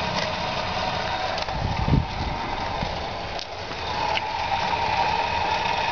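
Golf cart driving on asphalt: steady running noise with a whine that grows louder about four seconds in, and a low thump about two seconds in.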